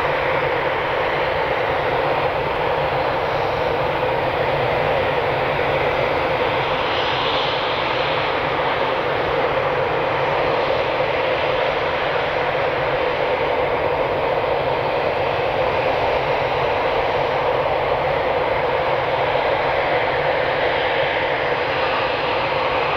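Eurofighter Typhoon's twin EJ200 jet engines running at a steady, unchanging level, a continuous loud roar with no rise or fall.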